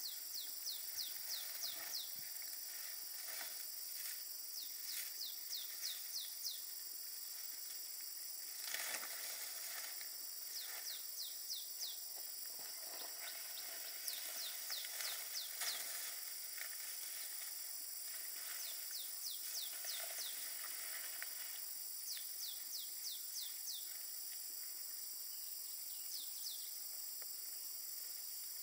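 A bird calls in runs of about five to eight quick, falling whistled notes, repeated every few seconds, over a steady high-pitched insect chorus. Now and then there is a brief rustle of palm fronds being handled, most plainly about nine seconds in and again around fifteen seconds.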